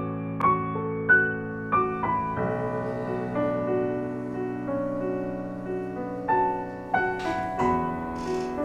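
Slow solo piano background music: a soft melody of single notes over held low chords.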